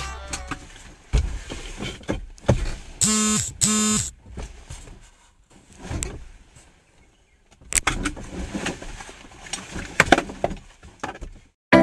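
Handling noises inside a car's cabin: scattered clicks, knocks and rustling as a person shifts in the seat in a leather jacket and seat belt. About three seconds in come two short beeps, one right after the other.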